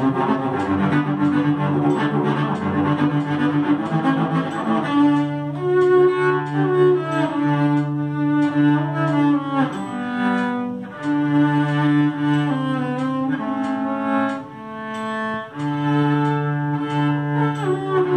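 Cello bowed in a practice run-through: quick moving notes for about the first five seconds, then long held notes of about a second each.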